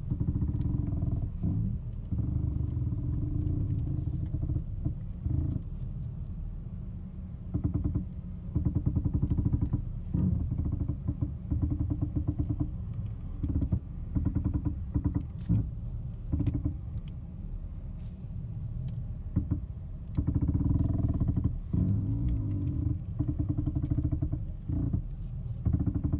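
Steering noise from a 2003 Ford Taurus as the wheel is worked, coming and going in spells of a second or two over the running engine. The owner suspects a bad bearing in the steering column or failing power steering.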